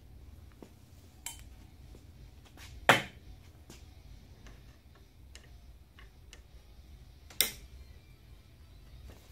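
Metallic clinks of small master-cylinder parts and a small metal parts tray being handled on a bench vise: three sharp clanks, about one, three and seven seconds in, the middle one loudest, with lighter ticks between over a low steady hum.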